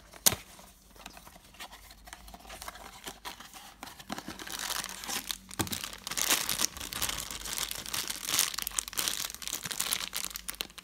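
A sharp click as a small cardboard blind box is opened, then light scratching of handling. From about four seconds in comes the loud, steady crinkling of a black foil blind bag being handled and torn open.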